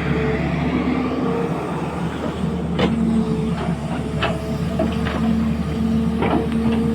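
An engine running steadily with a low hum, with several sharp knocks about three, four and six seconds in.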